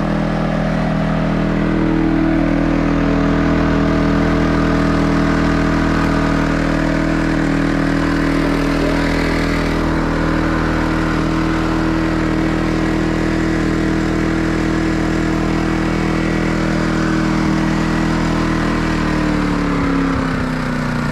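Champion 4500-watt dual-fuel inverter generator running steadily. Near the end its engine speed drops slightly.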